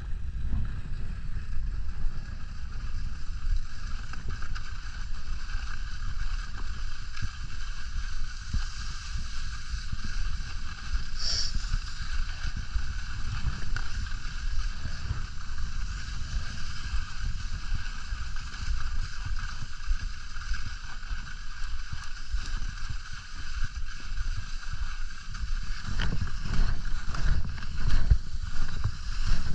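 Skis sliding over groomed, packed snow in a steady hiss, with wind rumbling on the microphone, a little louder near the end.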